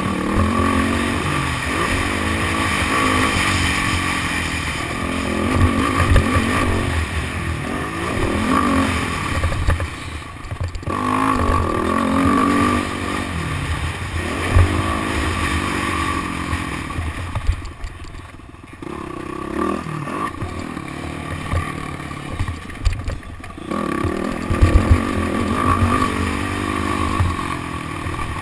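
Motocross dirt bike engine revving hard and falling back again and again as it works through the gears, with the throttle briefly shut off twice, about ten seconds in and again about eighteen seconds in, over clattering from the bike.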